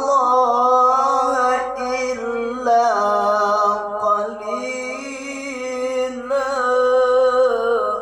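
A male qari reciting the Quran in the melodic tilawah style, holding long ornamented notes with wavering turns on a single breath.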